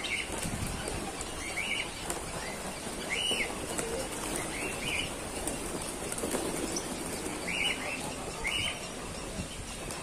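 A flock of pigeons flapping their wings as they take off and land around scattered feed, with a few short high bird chirps every second or two.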